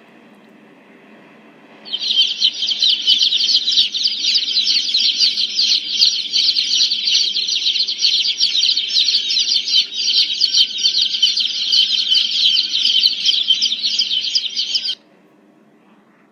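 A flock of baby chicks peeping all at once: a dense, loud chorus of rapid high peeps that starts suddenly about two seconds in and cuts off suddenly near the end.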